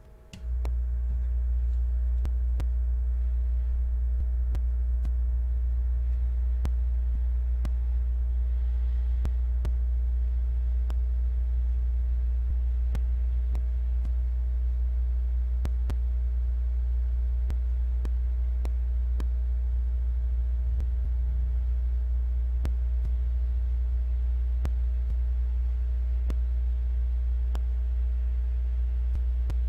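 A steady low electrical hum that switches on just after the start and holds at an even level, with faint ticks about once a second on top.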